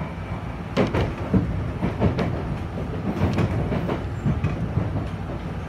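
Enshu Railway red 'Akaden' electric train running, heard from inside the front of the car: a steady low rumble with irregular clacks as the wheels cross rail joints and points, the loudest about a second in.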